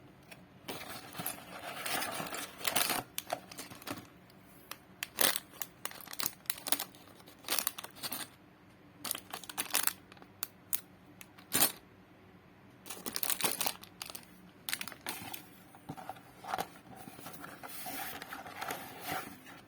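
Toy packaging being opened by hand, crinkling and tearing in irregular bursts with short pauses between.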